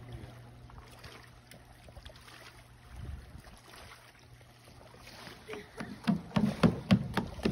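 Small waves lapping and trickling against a rocky shoreline, with faint ticks. Near the end come loud, irregular gusty bumps.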